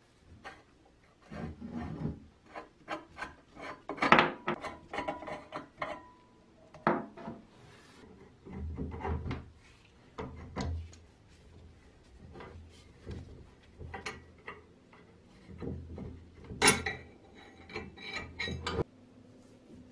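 Brass fittings being unscrewed from an old copper pressure sprayer: an adjustable wrench and metal parts clicking, knocking and scraping against each other and on a wooden workbench, with stretches of rubbing. The sharpest knocks come about four seconds in and near the end, and the sound stops abruptly.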